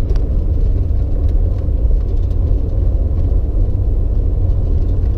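Steady low rumble of a vehicle driving on a graded cinder gravel road, heard from inside: tyre and engine noise, with a few faint clicks.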